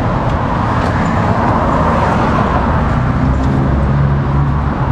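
Street traffic: motor vehicles passing close by, a steady road noise that swells and fades, with a low engine hum strongest near the end.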